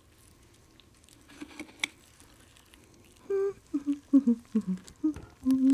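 A few soft clicks and crackles, then from about three seconds in a person humming a tune in short pitched notes.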